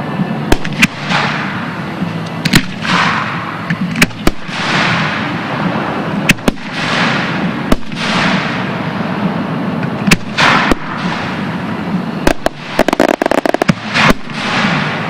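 Aerial fireworks going off: sharp shell bursts every second or so, with hissing and crackling between them and a rapid run of crackling pops near the end.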